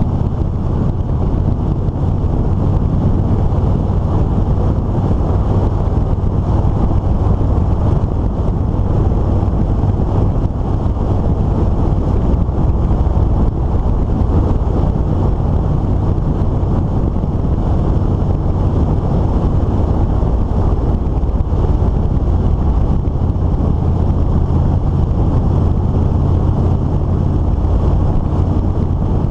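Steady wind rush on the microphone over the constant drone of a motorcycle engine cruising at road speed.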